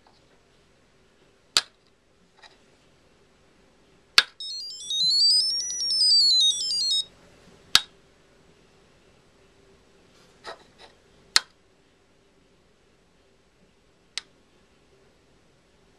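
Sharp knocks on a Seeeduino I/O shield's knock sensor, about eight spread out with uneven gaps. Right after a hard knock about four seconds in, the shield's buzzer plays a quick run of high beeps that climb and then fall in pitch for about two and a half seconds: the tones the board plays when a knock reaches its highest sensitivity level.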